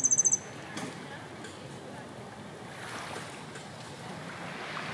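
Sea surf washing in as a steady hiss that swells twice. At the very start a loud, rapid, high-pitched trill of about ten pips cuts off abruptly.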